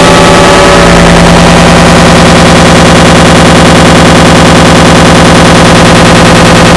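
An error sound effect stacked in an enormous number of layers, collapsed into a constant, heavily clipped wall of distorted, buzzing noise at maximum loudness. About a second in, the texture shifts and a low hum comes to the fore.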